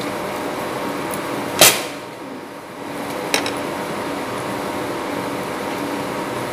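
Steady restaurant room hum with a sharp clink of metal cutlery against a plate about one and a half seconds in, and a lighter clink a couple of seconds later.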